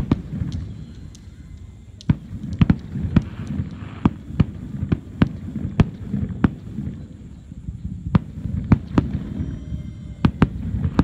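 Fireworks going off: an irregular run of sharp bangs, about two a second, over a steady low rumble.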